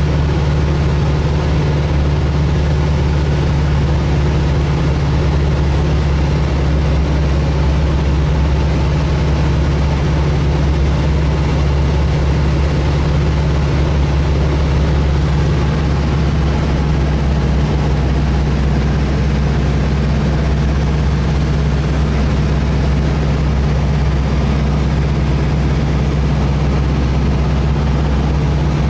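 A light aircraft's engine and propeller droning steadily, heard inside the cabin during the approach to land. The low note shifts slightly about sixteen seconds in.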